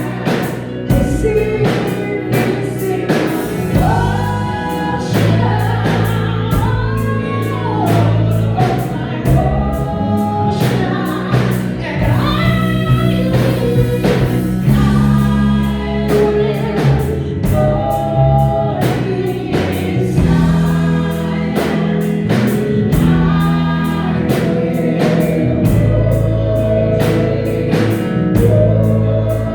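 Gospel worship song with a choir singing over a steady beat of drums and bass.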